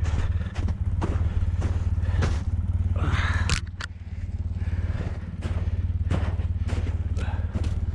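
Polaris Sportsman ATV engine idling steadily with a low pulsing hum. Over it come footsteps crunching in snow and twigs brushing past.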